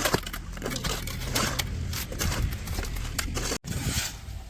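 A cement mixer's engine running with a steady low hum, under irregular scraping and crackling clicks of concrete and tools being worked. It cuts out abruptly for an instant about three and a half seconds in.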